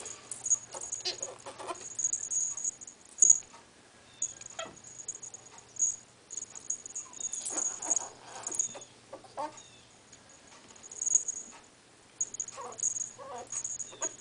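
Two ferrets, an adult and a kit, play-fighting: irregular spurts of small high squeaks and hissy chattering mixed with scuffling in a shaggy fabric bed, broken by short pauses.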